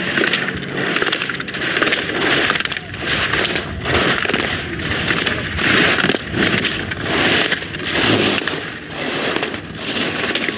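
Slalom ski edges carving and scraping on the snow, a rhythmic hiss that swells with each quick turn, about one and a half turns a second.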